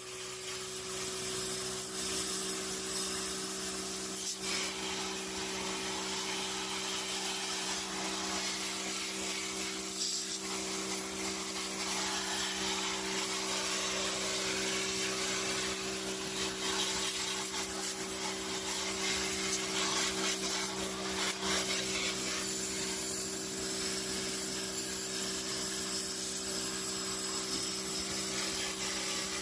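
Small electric pump motor humming steadily under a constant hiss of water spray, as a portable pressure washer rinses the cleaner out of an air conditioner's blower wheel.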